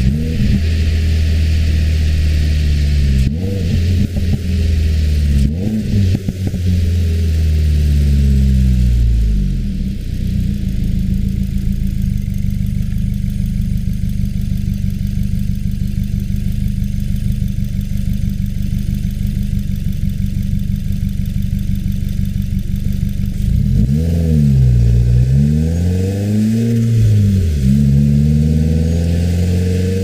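2015 Subaru WRX's turbocharged 2.0-litre flat-four with a muffler-delete axle-back exhaust, heard from inside the cabin while driving. The engine note drops and rises several times in the first ten seconds, with two sharp clicks, then holds a steady drone. About two-thirds of the way through it swings up and down again and climbs near the end.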